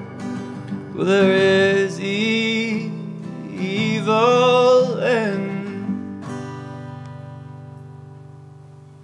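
Acoustic folk outro: fiddle and acoustic guitar play two long phrases of sliding, wavering notes, then a last strummed guitar chord about six seconds in rings out and slowly fades away.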